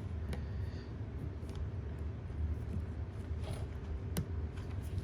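A few faint, light clicks of small RC car parts being handled as new wheel bearings are fitted into the hub carrier, the sharpest near the end, over a steady low background hum.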